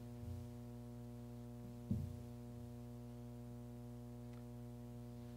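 Steady electrical hum, a set of evenly spaced low tones, in a room recording during a pause in speech. There is one short, soft low thump about two seconds in.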